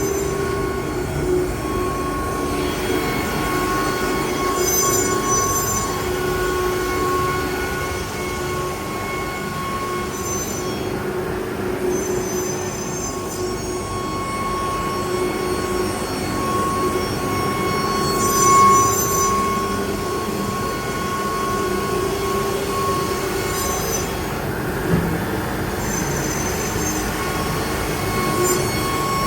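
Spindle of a 12-tool ATC CNC router running with a steady high whine while it cuts, its strength wavering, with brief high hissing patches every few seconds.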